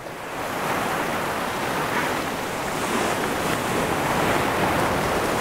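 Surf breaking against a rocky reef shore and washing over the rock shelf: a steady rush of waves that swells a little in the second half.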